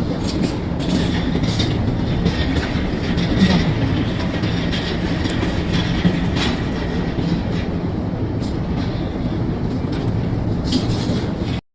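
Steady rumbling machine noise with scattered clicks and knocks.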